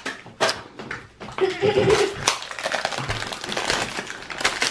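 Blind-bag foil wrappers crinkling and small plastic toys clicking as they are unwrapped and handled, with many short clicks throughout and a brief voiced hum about a second and a half in.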